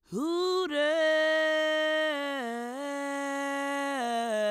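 A voice drawing out one long, held announcer-style call, ring-announcer fashion. It swoops up at the start, holds steady, then steps down in pitch twice.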